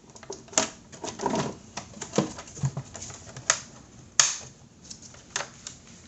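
Plastic air filter box cover of a Toyota Highlander Hybrid being worked into place: a string of light plastic clicks and knocks, with a sharper snap about four seconds in.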